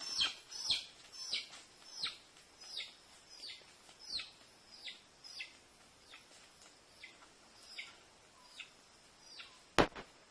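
A small bird calling over and over, each call a quick chirp sliding down in pitch, about three every two seconds at first, then fainter and further apart. A sharp click sounds near the end.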